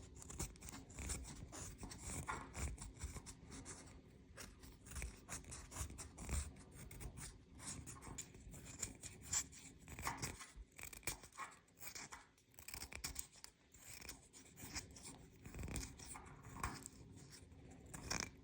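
Wooden pencil being sharpened to a long point: a run of short, irregular scraping strokes as wood and graphite are shaved away.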